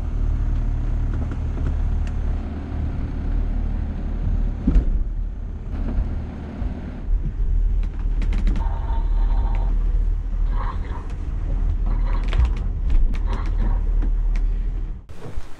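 Steady low rumble of a sailing catamaran's hull moving through the sea, heard from inside the cabin, with scattered creaks and clicks from the boat's interior, more of them in the second half.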